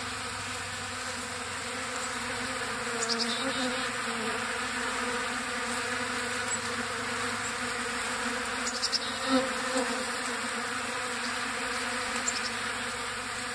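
Steady, dense buzzing of a large swarm of bees, hundreds of them flying and crawling over a spread of birdseed.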